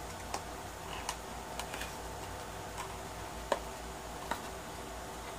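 Scattered light plastic clicks and taps as a rugged plastic phone case is worked out of its belt-clip holster, the sharpest click about three and a half seconds in, over a steady low hum.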